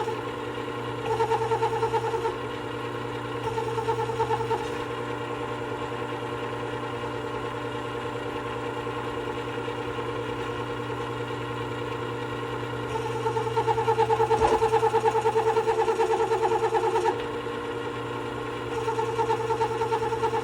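Work Sharp WS3000 sharpener's motor running steadily with its glass abrasive platen spinning, while a chisel blade is pressed to fine-grit paper to polish it: a louder fluttering grind comes and goes with each pass. There are three short passes in the first few seconds, a longer one of about four seconds two-thirds of the way through, and another near the end.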